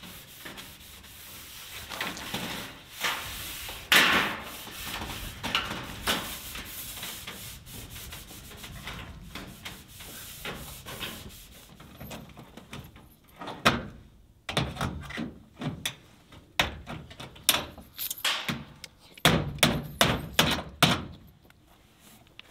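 Steel building siding being scrubbed with a hand tool, repeated rubbing strokes over the metal to clean it so adhesive will stick. In the second half the scrubbing gives way to a run of sharp knocks.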